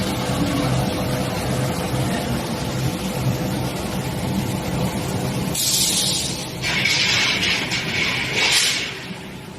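Industrial machinery of a drill-pipe induction heat-treatment line running with a steady hum. From about halfway on, two hissing bursts follow one another, the second lasting about two seconds, then fading near the end.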